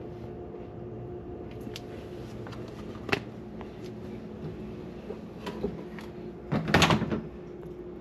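Refrigerator compartment being handled: a sharp knock about three seconds in and a louder clatter near the end, like a door, drawer or bin being moved, over a steady hum.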